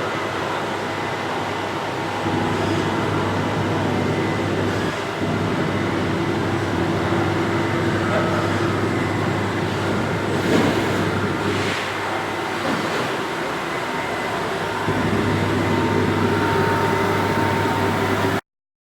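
Heckert CWK 400 D horizontal machining centre running: a steady machine hum with several held pitches that steps up and down in level a few times, with a couple of clicks about ten and eleven seconds in. The sound cuts off abruptly near the end.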